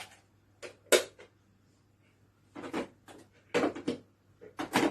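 Plastic knocks and clicks of a sewing machine's accessory compartment and small accessories being handled and put in place: one sharp knock about a second in, then short clusters of clattering clicks.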